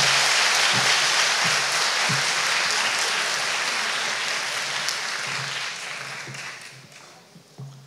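Audience applauding, steady at first, then dying away about six to seven seconds in.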